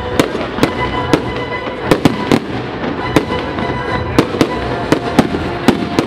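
Fireworks display: aerial shells bursting in sharp bangs, about two a second at irregular intervals.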